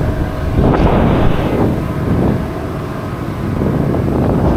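Wind buffeting the microphone over a steady low rumble, with a louder gust about a second in.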